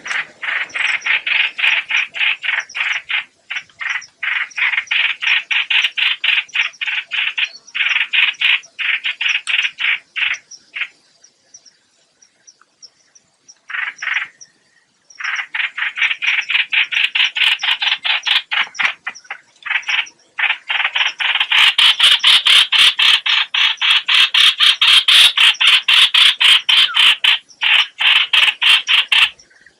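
Call of the hoạch hoạch bird, played as a trapping lure: long runs of rapid, harsh, evenly repeated notes, broken by short pauses, with a longer break about halfway and the loudest run near the end.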